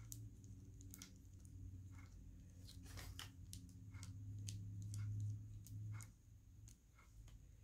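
Faint small clicks and taps of fingers and fingernails handling a small metal jewelry piece, over a low steady hum that stops about six seconds in.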